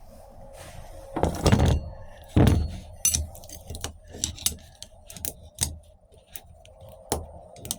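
Steel transmission parts (clutch drum, plates, snap ring) clinking and clattering as they are handled and pried apart: two loud clatters in the first three seconds, then a run of sharp metallic clicks and taps.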